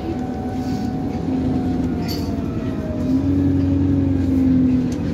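Alexander Dennis Enviro 400 double-decker bus running along, heard from inside the passenger saloon: steady engine and drivetrain hum with a thin whine that slowly falls in pitch. About three seconds in the engine note grows louder for a couple of seconds, then drops back near the end.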